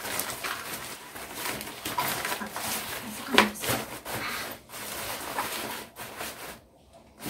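Backpack rain cover rustling and crinkling as it is folded and smoothed by hand, with short crackles throughout; the rustling drops away briefly near the end.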